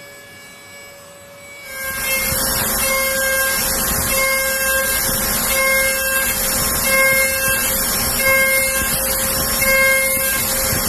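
CNC milling machine cutting, starting a couple of seconds in: a dense cutting noise with a whine that swells and fades in a regular cycle, about every second and a half.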